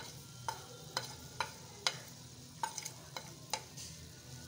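A metal spoon tapping and scraping chilli powder off a china plate into an aluminium pot, about nine sharp clicks at uneven intervals. A faint sizzle of tomatoes and onions frying in oil runs underneath.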